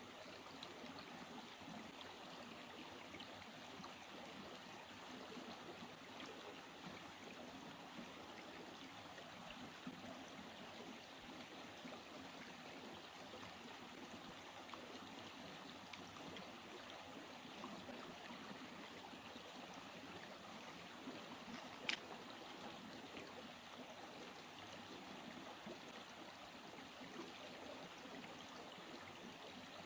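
A small trail-side stream flowing with a faint, steady babble of water. There is a single sharp click about two-thirds of the way through.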